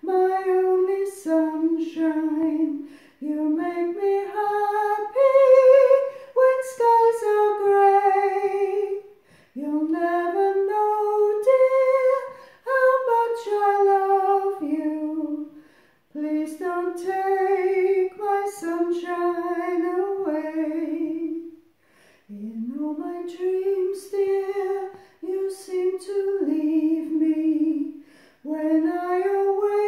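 A woman singing a soprano line unaccompanied, in long, wavering sung notes grouped into phrases with short breaths between them.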